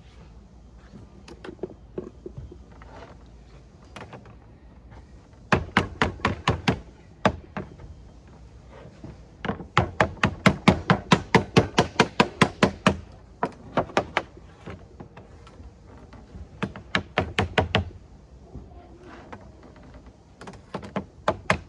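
A plastic lead dresser striking code 4 lead sheet, folding and dressing a welt over the edge of a bench. The strikes are dull and come in quick runs of about five a second, in several bursts with short pauses between.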